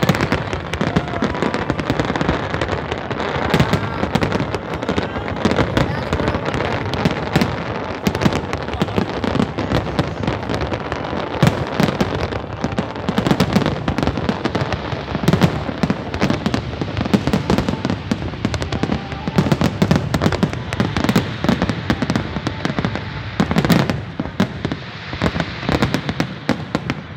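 Fireworks display: a dense, unbroken run of bangs and crackles from many shells bursting at once.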